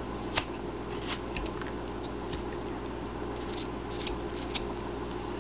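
Carving knife slicing small chips off a wooden figure: a string of short, crisp cuts at irregular intervals, about two a second, over a steady low background hum.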